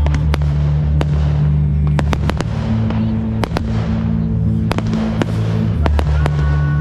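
Fireworks going off in repeated sharp bangs and crackles over loud music with a heavy bass line: the music track of a pyromusical display set to fireworks.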